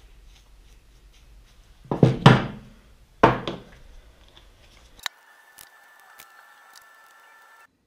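Two loud thunks on a workbench, the first a double knock about two seconds in and the second about a second later, as hard objects are handled and set down. After a cut, a faint steady tone with a few light clicks.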